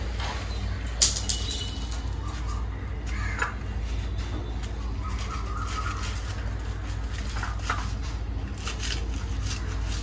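Kitchen knife cutting through a crispy deep-fried egg on a wooden cutting board: scattered crunches and knocks of the blade on the board, the sharpest about a second in, over a steady low hum.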